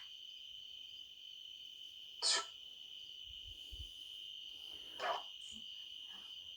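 A steady, high-pitched chorus of crickets runs unbroken throughout. Two brief sounds stand out above it, one a little over two seconds in and one about five seconds in.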